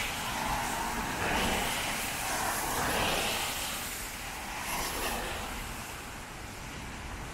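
Heavy rain hissing on a city street, with several swells of tyre noise from vehicles passing on the wet road.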